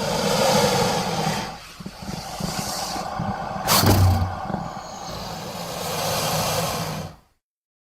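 Custom creature sound effect for the Tyrannosuchus: a long, rough, rasping growl over a rumbling low undertone, with a sharp hissing burst about four seconds in, cutting off suddenly near the end.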